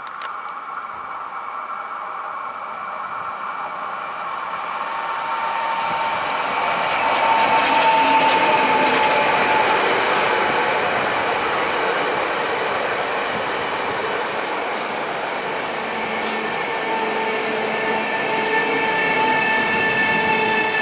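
Pesa Elf 2 electric multiple unit running into a station and passing close by. The rumble of its wheels swells to its loudest about eight seconds in, under a steady electric whine from the traction drive, as the unit slows alongside the platform.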